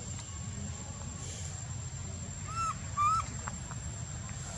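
Two short, high calls from a macaque monkey, each rising then falling in pitch, about half a second apart, over a steady low background rumble.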